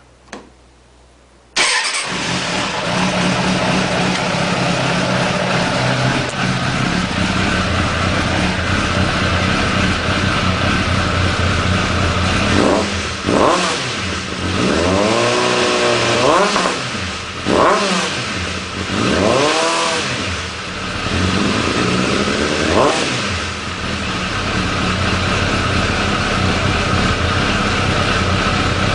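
Suzuki Bandit 600's air/oil-cooled inline-four, breathing through a BOS aftermarket exhaust with the dB-eater baffle removed, fires up about a second and a half in after two short clicks. It then idles steadily, with about five quick blips of the throttle in the middle.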